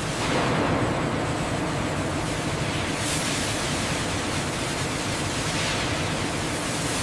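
Steady hiss of steam venting from industrial cooking drums, with machinery running underneath.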